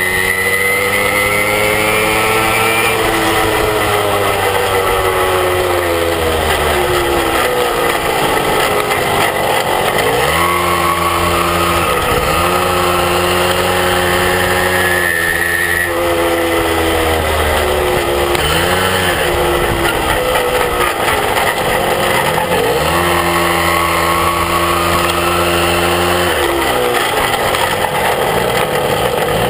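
Small moped engine running under way, its pitch climbing as it accelerates and dropping back several times as the throttle is eased and opened again.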